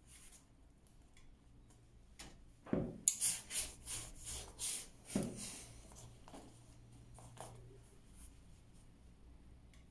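A clothes iron is set down on a cardboard pressing board with a thud and pressed over folded silk in a quick series of short rubbing, hissing strokes. A second thud comes about five seconds in. Faint fabric handling before and after.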